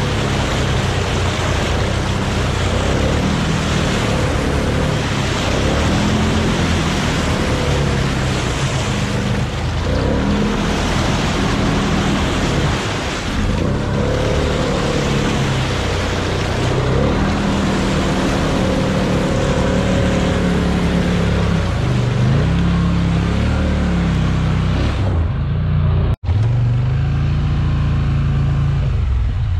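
Snorkeled four-wheeler ATV engine revving up and down as it churns through deep mud and water, with a steady wash of splashing under the engine note. The sound cuts out for an instant near the end and comes back as a lower, steadier engine note.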